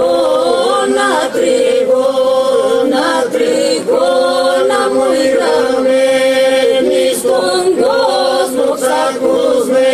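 Epirote polyphonic folk singing by a small unaccompanied group of men and women. A steady vocal drone is held underneath while the leading and answering voices turn and ornament the melody above it.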